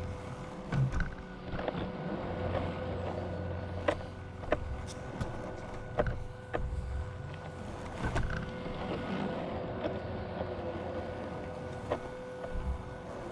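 A small motor running with a steady whine, with scattered clicks and knocks over it.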